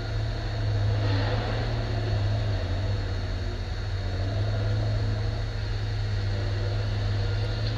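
Engine running steadily: a low, even hum with a fan-like hiss over it.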